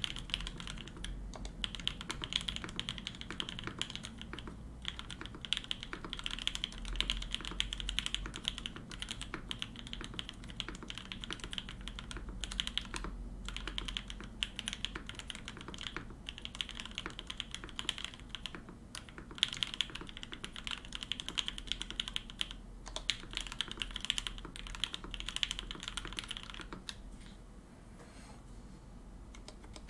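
Typing on a Satisfaction 75 mechanical keyboard with lubed Opblack switches, an FR4 plate and GMK Botanical keycaps: a dense, continuous run of keystrokes that stops about three seconds before the end.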